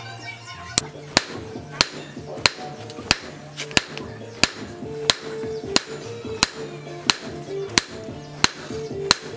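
Hand hammer striking red-hot chainsaw-bar steel on an anvil: a steady run of sharp, ringing blows, about one and a half a second, over background music.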